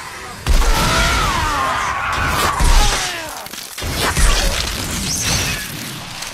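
Film action sound effects for a vampire bursting into burning embers. A sudden heavy hit with a whoosh about half a second in, then several falling, sweeping tones over a rumble, and two more low booms.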